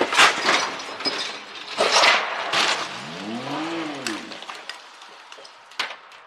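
Car crash: loud crunching impacts with scraping and clinking debris, heaviest at the start and again about two seconds in. About three seconds in a brief tone rises and falls as the noise dies away.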